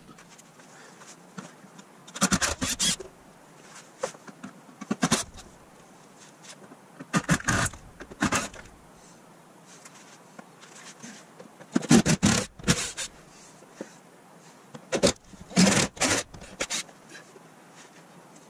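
Cordless power driver running in about six short bursts, spinning out the 10 mm bolts that hold a car's plastic under-engine splash pan.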